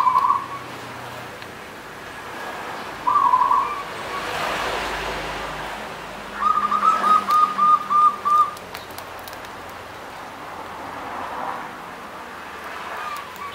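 Zebra dove (perkutut) singing its cooing song. A short coo comes at the start and another about three seconds in, then a quick run of about eight rolling coos from about six to nine seconds in.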